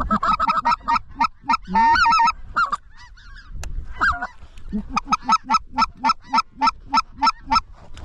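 Specklebelly (greater white-fronted goose) calls: short, high yelps that break into lower notes, in quick runs in the first half. Near the end comes a steady series of about four yelps a second for roughly three seconds.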